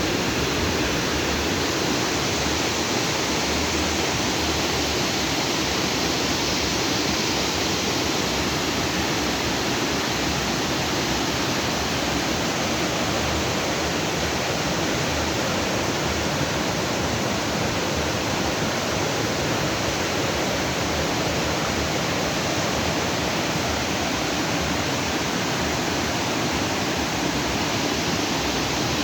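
Stream water rushing freely over and between rocks: a steady, dense rushing noise.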